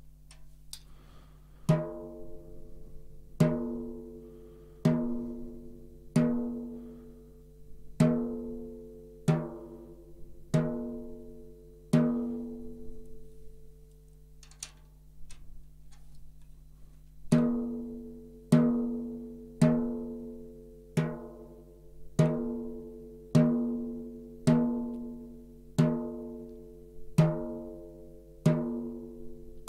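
Snare drum batter head tapped with a drumstick, one stroke at a time, each ringing out with a clear pitch. The strokes come about every second and a half, with a pause of a few seconds in the middle. The head is being fine-tuned, checking at each tension rod that all points ring at the same pitch.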